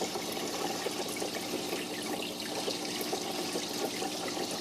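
Home aquarium water trickling steadily, with many small pops.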